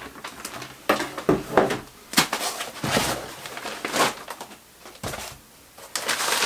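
White foam packing blocks being lifted out of a cardboard box: scraping, rubbing and rustling of foam against cardboard in irregular short bursts, with a brief lull in the second half.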